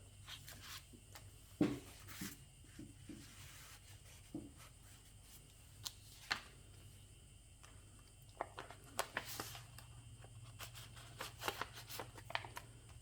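Pages of a handmade paper junk journal being turned and handled: scattered soft paper rustles and light taps, the sharpest about a second and a half in, over a faint steady hum.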